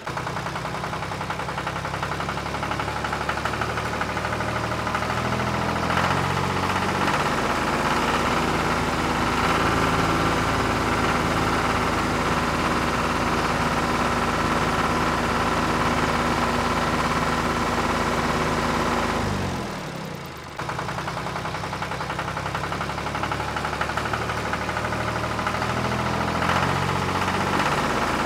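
Tractor engine sound from a remote-control toy tractor, a steady rhythmic chugging with a higher whine above it. A rising whine comes about six seconds in. Around two-thirds of the way through, the sound falls in pitch, cuts out briefly, then starts again.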